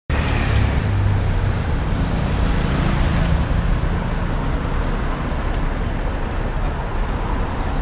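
Steady road traffic noise on a busy street: a continuous low rumble of passing cars and buses.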